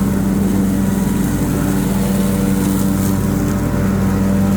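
Lawn mower engine running steadily at a constant pitch under load, mulching fallen leaves into pasture grass.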